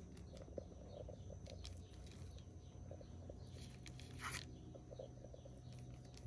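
Faint short crackling cuts as the tops of soft poğaça dough buns are slit, the clearest about four seconds in, over a low steady hum.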